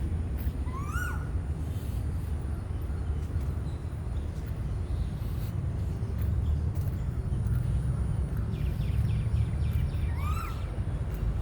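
A bird's short rising-then-falling call, heard twice about nine seconds apart, with a few quick chirps shortly before the second, over a steady low rumble.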